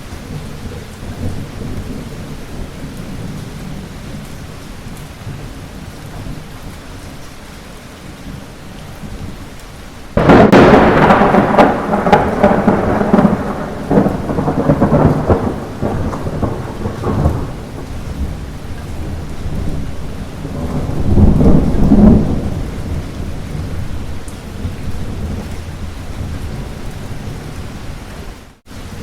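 Light rain falling steadily. About ten seconds in, a sudden thunderclap rumbles on for several seconds. A second, lower roll of thunder builds and fades around twenty-one seconds in.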